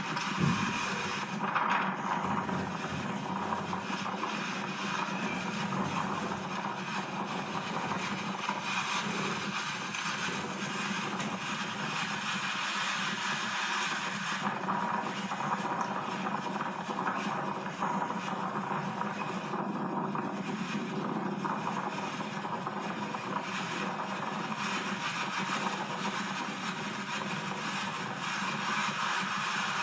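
Steady vehicle noise: a low engine hum under a constant wash of hiss, with no break or change.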